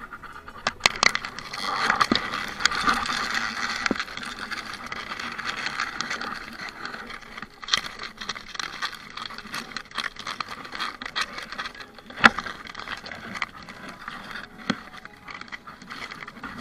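Leaves and grass stems rustling and scraping right against the microphone, with many sharp crackles and snaps as the vegetation is pushed aside. It is loudest in the first few seconds, and there is one sharp snap about twelve seconds in.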